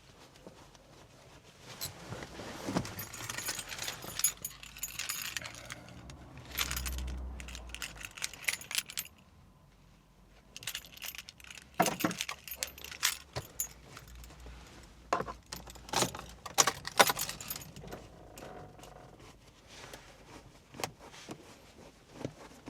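Hands refitting a car's gear knob and shift boot: scattered clicks, rattles and metallic jingling with rustling, in two spells separated by a short quiet pause about ten seconds in.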